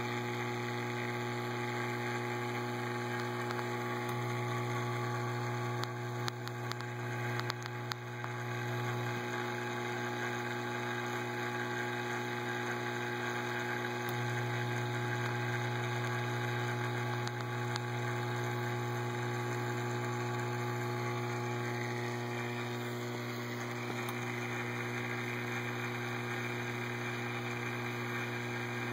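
Steady electrical hum of reef aquarium equipment, the pumps moving the water, with a strong low mains hum and a few steady higher tones over it. A few light clicks come about six to eight seconds in.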